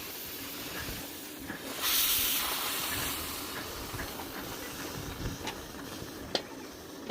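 Steam hissing from a 5-inch gauge live steam locomotive. A louder burst of steam comes about two seconds in, then the hiss fades away over the next few seconds, with a few light clicks near the end.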